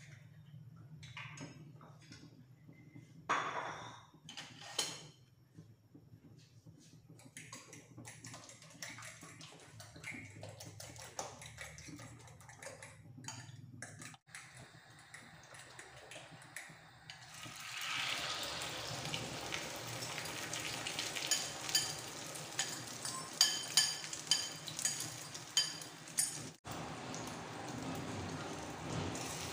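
A spoon clinking and scraping in a bowl as the omelette mixture of egg, tomato, onion and chilli is stirred. A little past halfway the mixture goes onto a hot iron tawa and begins to sizzle steadily, with many sharp pops and crackles.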